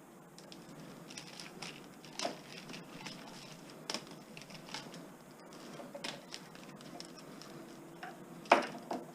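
Scattered clicks, taps and rustles of insulated copper wire being handled and fed into a commercial electric wire stripper, with one sharper knock near the end.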